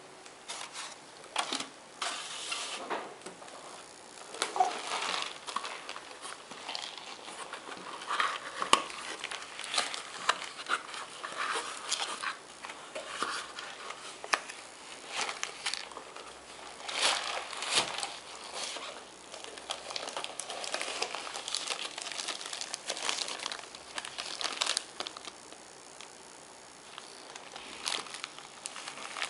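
Clear plastic packaging crinkling and rustling irregularly as it is handled and pulled open, with occasional light knocks.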